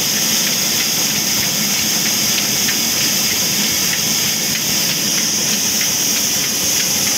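Diesel-powered sawmill band saw running idle, not cutting: a steady, loud high hiss with faint regular ticking.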